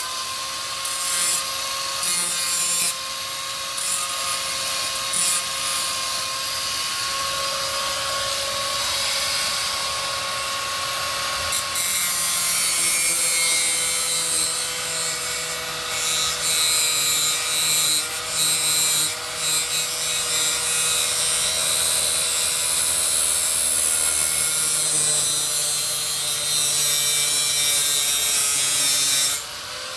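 Electric angle grinder running with a steady whine, its disc grinding against the steel heads of bolts to round them off so a wrench can't grip them. The grinding hiss thins for moments every few seconds as the disc is eased off and pressed back on, and drops just before the end.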